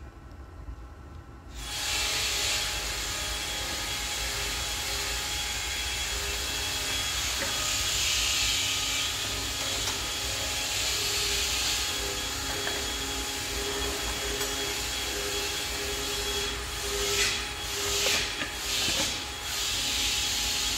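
Home-built radio-controlled lawn mower running: a steady mechanical noise starts suddenly about a second and a half in and holds, swelling several times near the end as the mower manoeuvres.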